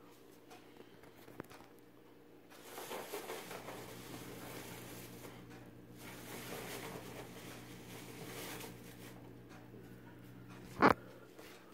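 Rustling and scuffling of a cat at play, in two stretches of a few seconds, then one sharp knock near the end, over a steady low hum.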